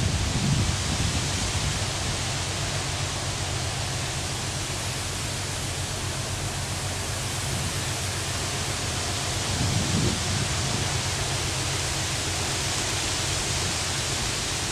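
A large car-carrier ship passing close by, heard as a steady, even rushing noise with a low hum beneath it. A brief wind gust buffets the microphone about ten seconds in.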